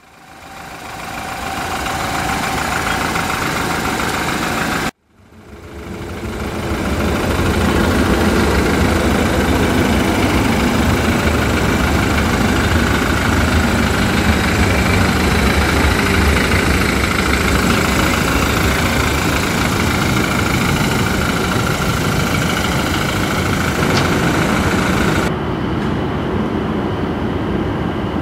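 BMW N20 turbocharged 2.0-litre four-cylinder engine of a 2013 BMW X3 xDrive28i running steadily at idle. The sound cuts out abruptly about five seconds in and fades back up.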